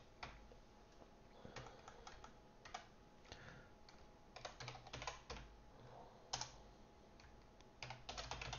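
Faint computer keyboard typing: keystrokes come in short, irregular bursts with pauses between them.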